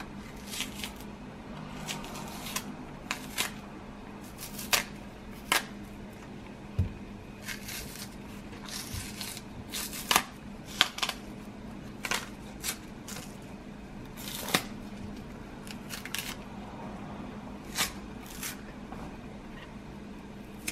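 A hard, unripe green plantain's peel being pried up and pulled off by hand: irregular crisp snaps and scrapes, a couple of dozen of them, over a faint steady hum.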